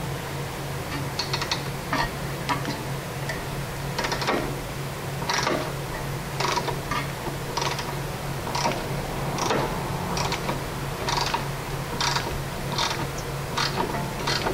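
Ratcheting wrench clicking in short runs as it is worked back and forth on a seized sway bar link nut, while the stud is held with a Torx bit, over a steady low hum.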